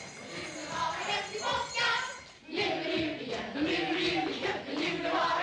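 A group of voices singing together in a festive song, the notes held and swaying.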